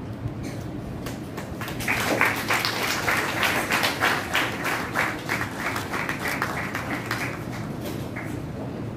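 Audience clapping in a hall, starting about two seconds in, loudest for a few seconds and dying away near the end.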